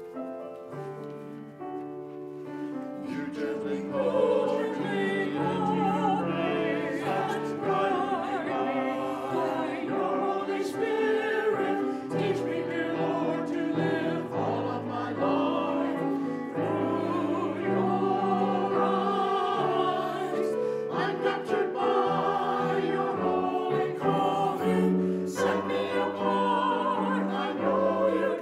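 Church choir singing with vibrato over sustained keyboard accompaniment.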